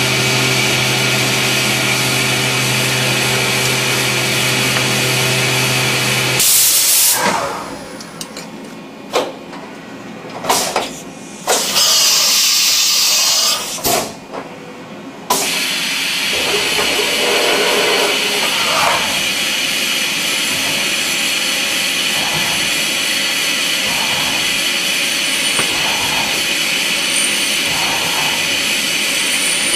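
Multi-axis CNC milling machine cutting a brass part, its spindle running with a steady hum. About six seconds in the cutting breaks off for several seconds, with a few sharp knocks and a loud hiss, as the part is turned and the tool changes. Then steady hissy machining resumes.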